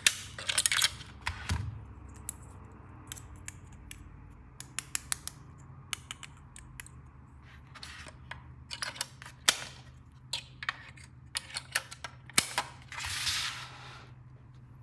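Small plastic toy pieces being handled, with irregular sharp clicks and taps, some in quick runs, and a short rustle near the end.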